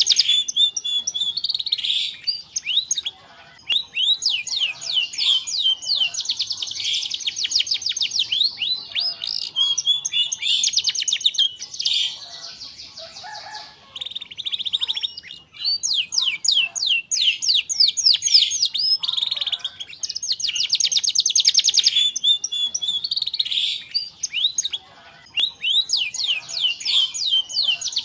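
Domestic canary singing: long phrases of high, very fast trilled rolls, one after another with short pauses between them.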